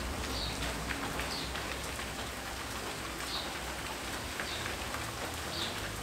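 Steady rain falling on garden foliage: an even hiss with scattered drip taps.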